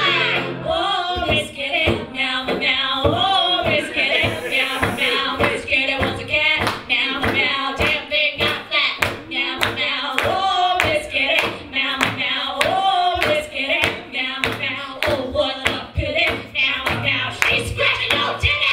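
Women singing live over a steady beat of hand claps, with the guitar mostly dropped out; the hollow-body electric guitar comes back in near the end.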